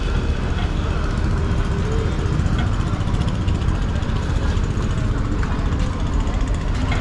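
Steady low rumble of street traffic with faint background voices.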